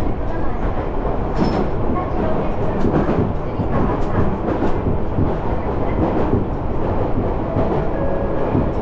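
Train running along the track: a steady rumble with scattered sharp clicks from the wheels on the rails.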